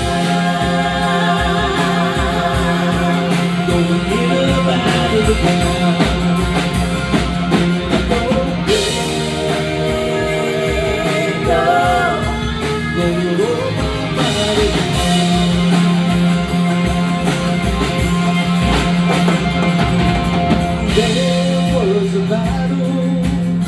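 Rock band playing an instrumental passage with drums and guitars, a wavering lead melody over a held low note.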